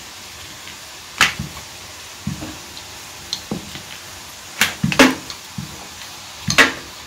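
Wooden rolling pin rolling out dough on a wooden board, with several sharp knocks and clicks as the pin and hands move on the board.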